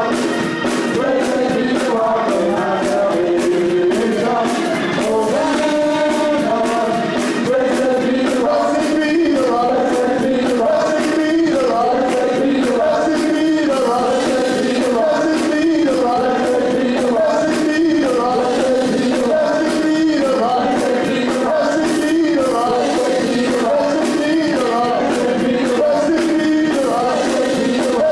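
Live worship music: a band playing with voices singing.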